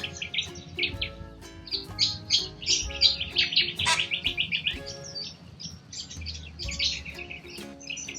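A flock of corella cockatoos chattering in quick short calls, many overlapping, over background music with held notes and a low bass.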